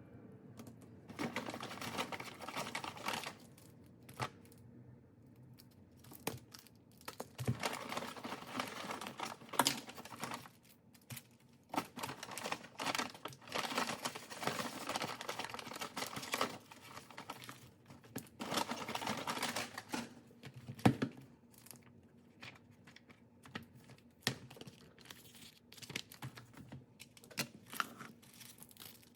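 Rustling and crinkling in irregular bursts of a second or two, with scattered sharp taps and clicks.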